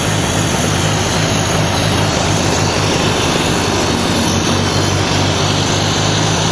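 Ford 641 tractor's four-cylinder engine running steadily under way on wood gas, with a steady drone. The mixture is running a little rich and the engine is missing slightly.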